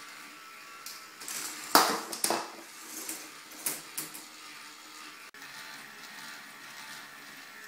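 K'nex ball-machine lift running: its small motor and plastic chain and gears make a steady whirring rattle, with a few sharp plastic clacks, the loudest about two seconds in.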